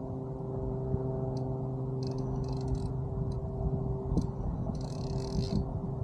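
A motor hums steadily throughout. Over it, twice, comes a short high buzzing of ticks: the spinning reel's drag giving line as a hooked fish, which the angler takes for a stingray, pulls against the bent rod.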